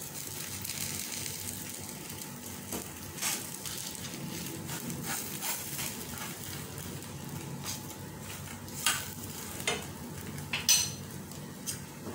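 Dosa batter sizzling steadily in a non-stick frying pan while a metal spoon scrapes and taps on the pan, folding the dosa over its filling and pressing it flat. A few sharper spoon knocks come in the last few seconds.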